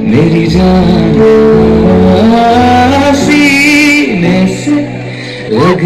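Loud Bollywood song playing, a voice singing a gliding melody over a steady bass line.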